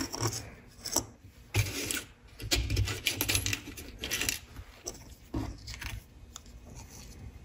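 Small printed circuit boards being picked up and handled by hand on a workbench, giving irregular light clicks, taps and rubbing.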